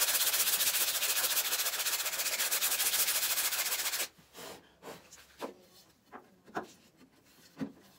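Hand sanding of an MDF table-saw insert's edge with sandpaper wrapped around a wooden block: quick rubbing strokes that stop abruptly about four seconds in. A few light knocks follow.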